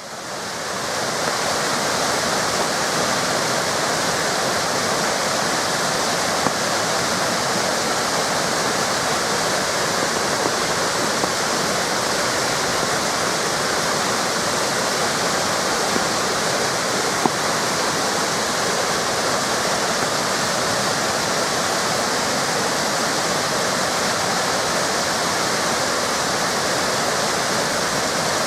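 Waterfall cascades rushing steadily, fading in over the first second or so.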